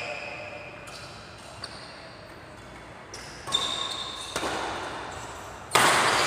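Badminton rackets striking a shuttlecock in a rally, a handful of sharp hits that echo around the hall, the loudest near the end.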